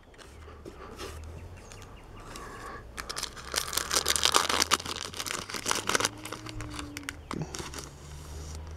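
A Panini Hoops basketball card pack's wrapper being torn open and crinkled. The dense crackling starts about three seconds in and lasts a few seconds, then fades to lighter rustling as the cards are drawn out.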